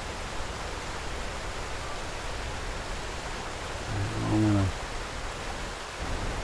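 Steady rushing noise of wind buffeting the microphone, with a low rumble. About four seconds in, a man's voice gives a short hum or grunt.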